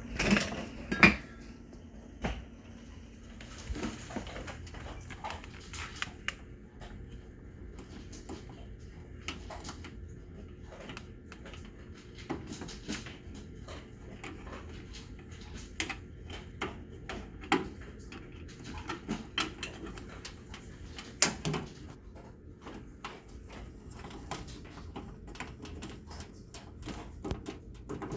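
A switch being operated over and over, making a run of irregular sharp clicks, with a louder knock about a second in and another late on.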